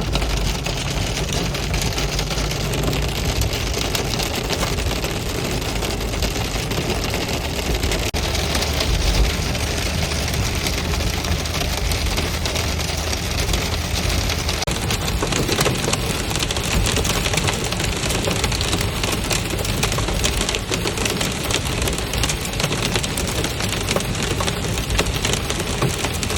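Hail and rain drumming hard on a car's roof and windshield, heard from inside the cabin as a loud, dense, unbroken clatter that starts suddenly.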